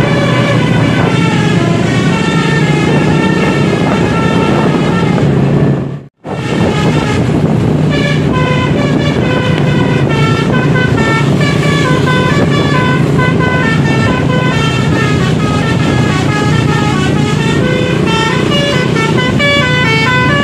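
Bus 'telolet' multi-tone air horn (Basuri type) playing a fast melody of stepping notes over a steady engine hum, cutting out briefly about six seconds in.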